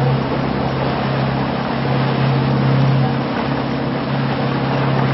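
A boat's motor running steadily with a constant low hum, under an even rushing hiss of water.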